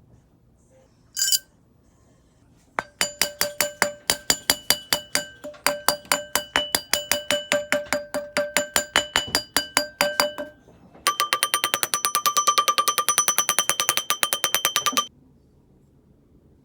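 Metal hammer tapping a silver ring on a steel ring mandrel to reshape a deformed ring: one strike, then a long run of ringing taps about four a second, then after a short pause a quicker run of rapid taps that stops suddenly.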